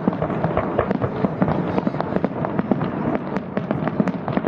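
Fireworks going off in quick succession: many sharp pops and cracks, several a second, over a continuous rumble.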